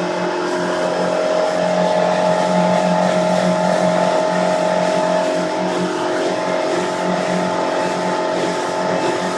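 Suzuki DF90A four-stroke outboard motor running steadily at speed, a constant drone over a steady hiss, swelling slightly in the first few seconds.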